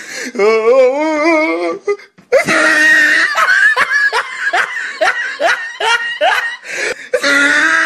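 A drawn-out, wavering vocal sound, then after a short break about five seconds of rapid, high-pitched laughter.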